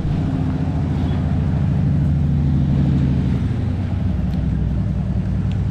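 A motor vehicle's engine running steadily, loudest in the middle and easing off toward the end.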